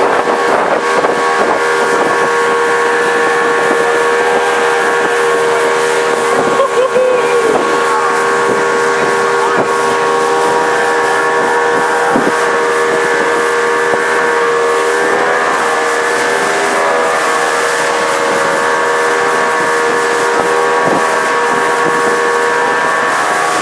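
Motorboat engine running steadily at cruising speed, with water rushing and spraying past the hull.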